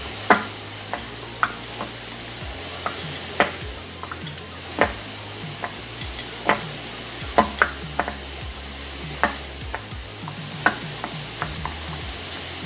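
Hand kneading soft yeast dough in a glass bowl: irregular sharp clicks and knocks, one or two a second, as hand and dough press and tap against the glass.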